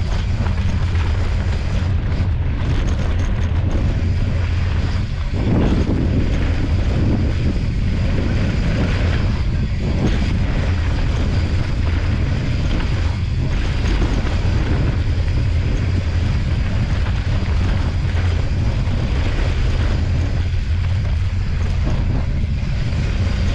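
Steady, loud wind rush and low rumble on a handlebar-mounted camera's microphone as a mountain bike rolls fast down a dry dirt trail, with the tyres and bike rattling over the ground underneath.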